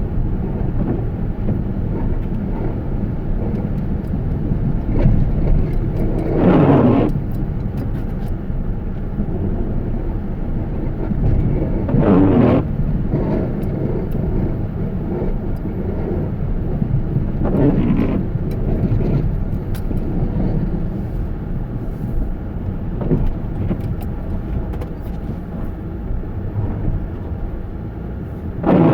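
Steady low rumble of a car driving, with a brief swishing sweep about every five to six seconds.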